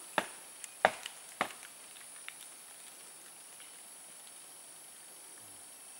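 A steady high-pitched chorus of forest insects, with three sharp knocks in the first second and a half.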